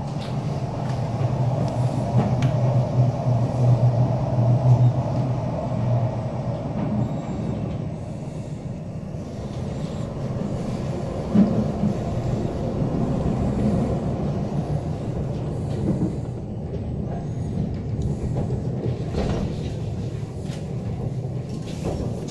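Rhaetian Railway narrow-gauge train running, heard from inside the carriage: a steady low rumble and hum, loudest in the first few seconds, with a couple of short knocks from the running gear.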